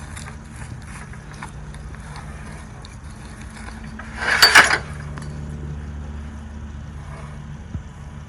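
A steady low hum, with a short burst of metallic clattering and rattling about four and a half seconds in.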